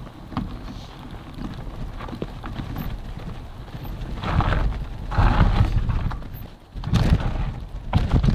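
Mountain bike rolling over a rough, stony trail: tyres crunching and the bike rattling with quick irregular clicks and knocks, over a low rumble, growing louder in uneven surges from about four seconds in.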